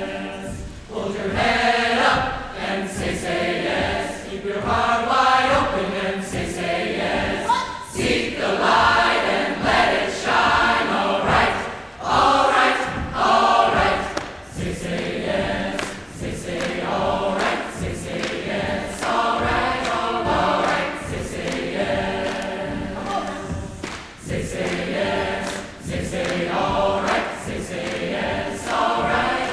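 Mixed teenage choir singing together in parts, phrase after phrase with short breaths between them.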